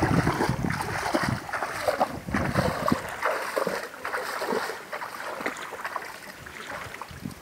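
Bare feet wading through shallow water, a run of irregular splashing steps that grows quieter after about three seconds.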